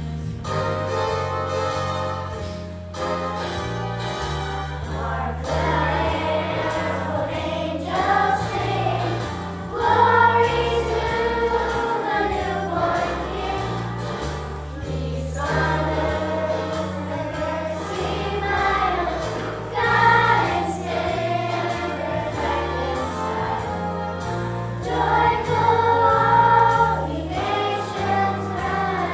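Children's choir singing a Christmas song over an instrumental accompaniment with a steady low bass line, the singing swelling louder in a few phrases.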